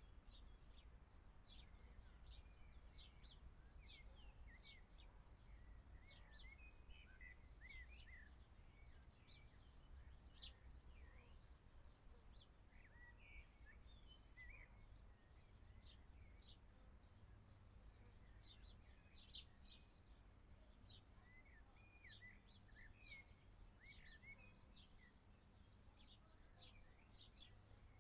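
Faint birdsong: many short, high chirps and quick little whistled sweeps from small birds, scattered throughout over a steady low background noise.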